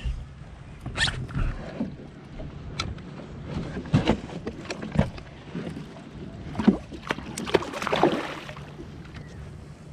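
Scattered knocks and bumps on a fishing kayak over a steady low rumble of wind and water.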